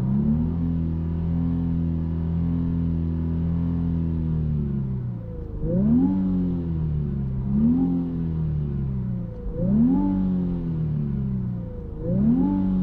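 Nissan Skyline 400R's 3.0-litre twin-turbo V6 exhaust through a NISMO Sports titanium muffler, heard from the driver's seat while the car is parked. Revs are held steady for about five seconds, then drop, followed by four quick throttle blips, each a sharp rise and fall in pitch.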